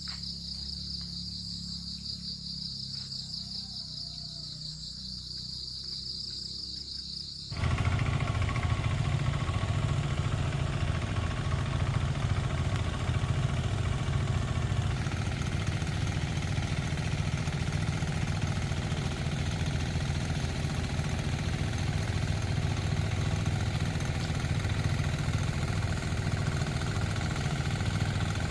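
Insects chirring in a steady high trill for about seven seconds, then an abrupt change to a louder engine running steadily.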